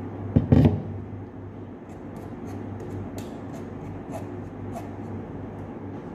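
A heavy thump about half a second in, then light scattered clicks and clinks as a metal lid and spoon are handled on a large glass jar, over a steady low hum.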